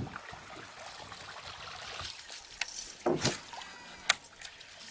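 Water trickling and lapping around a small boat, with a few sharp clicks and a short louder sound about three seconds in; the loudest click comes about four seconds in.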